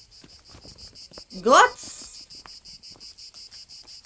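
Insects chirping steadily in a fast, even pulse of about eight chirps a second. About one and a half seconds in, a woman's voice asks "Goats?" with a rising tone.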